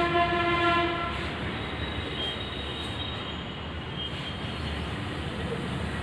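A horn sounds once, a single steady note lasting about a second, followed by a steady low rumble.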